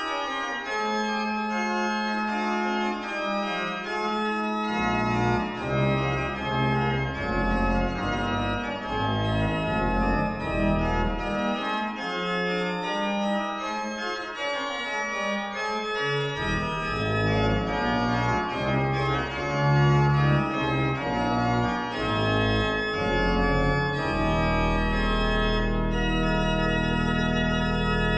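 Sampled Arp Schnitger pipe organ of Steinkirchen, played through Hauptwerk, playing a chorale prelude in several voices, with deep pedal bass notes dropping out for a few seconds and then returning. It settles on a long held final chord near the end.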